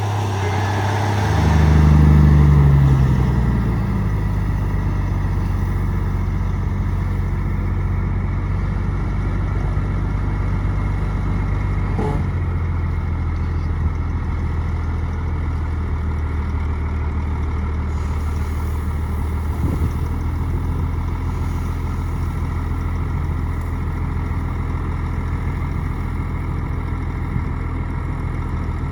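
Shantui bulldozer's diesel engine running steadily, with a brief rev that rises and falls about two seconds in before it settles back to an even, low running note.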